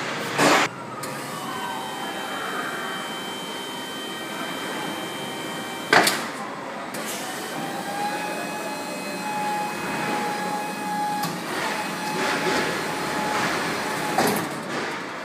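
Electric motor whine of a STILL pallet truck with a Rhino battery-exchange unit, drawing a forklift battery from the charging rack onto its platform. The whine falls in pitch near the start, then holds steady tones that shift several times. Sharp knocks come about half a second in, about six seconds in and near the end.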